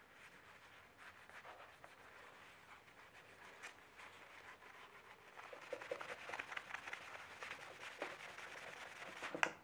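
Cloth buffing wax on a wooden knife handle: faint rubbing and scratching strokes that get busier and louder in the second half, with one sharp knock near the end.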